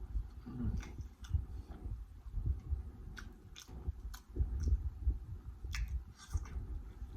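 Irregular soft, wet squishing of food being handled, with scattered light clicks and low dull thumps.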